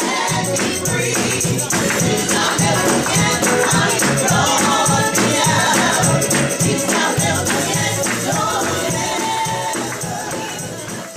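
Gospel music with a choir singing over rhythmic percussion and a band, starting to fade toward the end.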